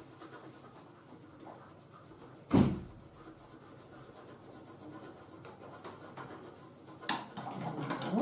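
Coloured pencils scratching on paper, with a single loud thump about two and a half seconds in. Near the end come a few clicks and some rustling of paper.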